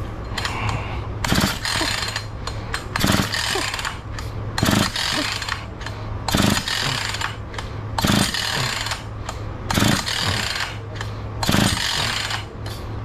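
Husqvarna 445 two-stroke chainsaw being pull-started on its recoil starter: seven rope pulls about every second and a half, each a short burst of cranking, and the engine never catches on choke.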